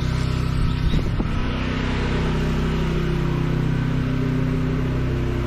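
Pressure washer's engine running steadily under the hiss of a high-pressure water jet rinsing down paving, the spray growing stronger a second or two in.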